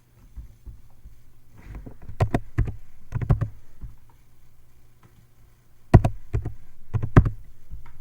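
Clicking at a computer: sharp clicks in small clusters about two to three seconds in and again around six and seven seconds, over a low steady hum.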